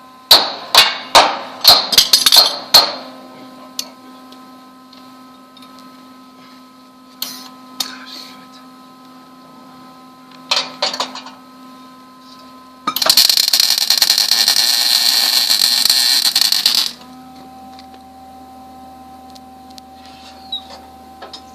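Sharp metal-on-metal hammer strikes on steel, about eight in quick succession, then a few scattered knocks. Later, about four seconds of steady wire-feed welding arc crackle that cuts off abruptly, a weld being laid.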